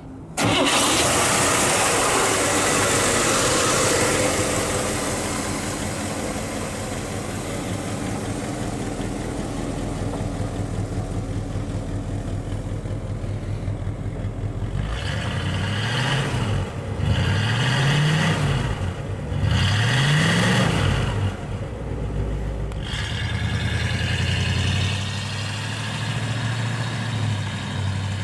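1961 Cadillac Series 62's 390 cubic-inch V8 starting and settling into a steady idle. About halfway through it is revved three times in quick succession, each rev rising and falling back, before it returns to idle.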